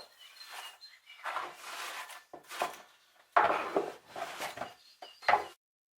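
Irregular rubbing and knocking of a polished wooden fitting being wiped and handled: a string of short scuffs with gaps between them, cutting off suddenly near the end.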